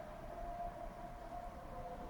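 Faint civil defense siren holding a long, nearly steady tone that sags slightly in pitch during a public warning-siren test. A second, lower siren tone joins near the end.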